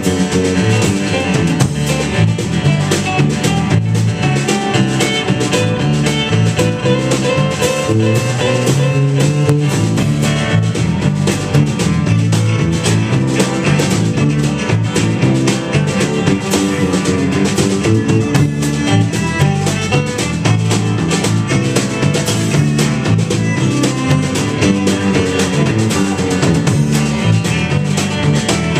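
Live folk-rock band playing: strummed acoustic guitar with electric guitar and cello, steady and full throughout.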